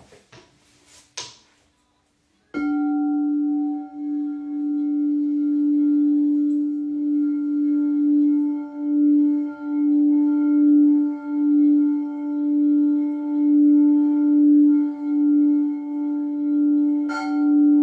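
Singing bowl struck about two and a half seconds in, then ringing on in one low hum with fainter higher overtones. The hum pulses in a slow, even wobble and swells louder instead of fading. It is struck again near the end.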